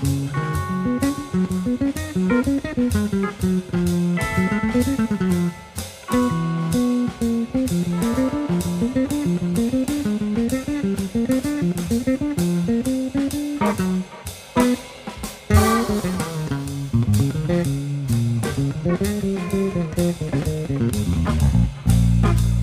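Live jazz-fusion trio music: an electric bass plays fast melodic runs over drum kit, with brief pauses about five and fourteen seconds in.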